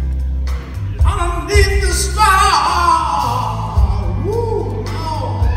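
Live blues band: a man singing and a bending electric guitar over bass guitar and drums.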